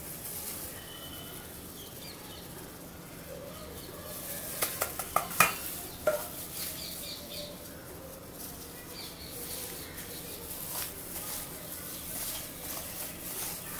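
Cooking utensils and dishes clinking and knocking as food is handled, with a cluster of sharp clacks about five seconds in and lighter clicks after. Faint bird chirps sound in the background.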